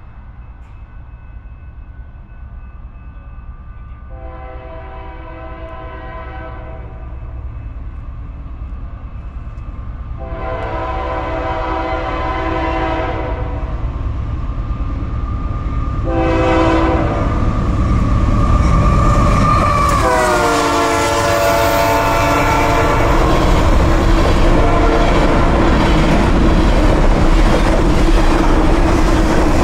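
Approaching diesel freight locomotive sounding its multi-chime air horn: two long blasts, a short one and a long one, the grade-crossing signal. The horn's pitch drops as the locomotive passes about twenty seconds in. After that comes a steadily louder rumble and wheel clatter of covered grain hopper cars rolling past.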